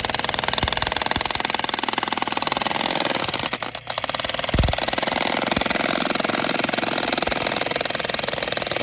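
Jackhammers hammering rapidly into rock while digging out geodes, a fast steady chatter that breaks off briefly a little past three seconds in and then resumes, with a low thump just after.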